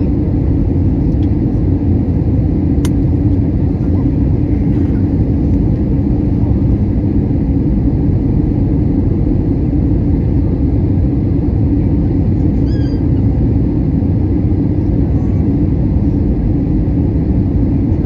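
Steady cabin noise of an Airbus A320 in flight, heard from a window seat over the wing: a low, even rumble of the jet engines and the airflow over the fuselage.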